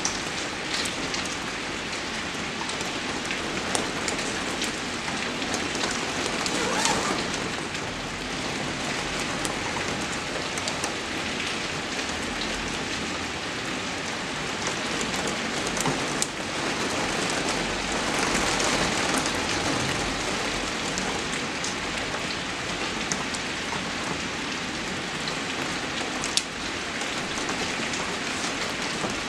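Steady rain falling, with scattered sharp ticks of single drops.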